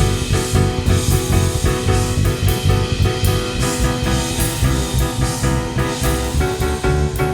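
Jazz piano trio playing: piano, bass and drum kit, with steady cymbal strokes over sustained bass and piano notes. The harmony shifts near the end.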